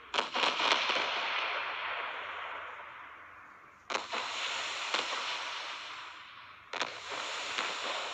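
Fireworks bursting in three volleys: a quick cluster of cracks at the start, then single bangs about four seconds in and near the end, each trailing off into a long, fading crackle.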